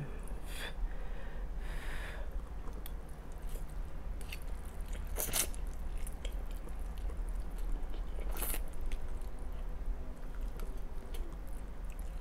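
A person chewing and eating spaghetti close to the microphone, with wet mouth clicks and smacks scattered throughout; two sharper noises stand out, about five and eight seconds in.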